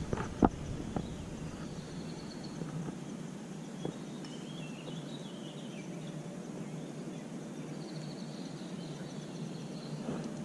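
Steady outdoor background noise with faint, high, wavering bird chirps coming and going, and a couple of sharp clicks right at the start.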